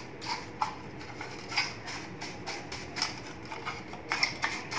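Scattered light clicks and taps as a laser printer's laser scanner unit is handled and brushed to clear its thick dust.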